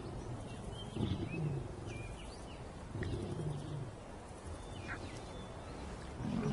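Lions giving low, drawn-out growls, three of them about two seconds apart, each sliding down in pitch. Short high bird chirps sound faintly above them.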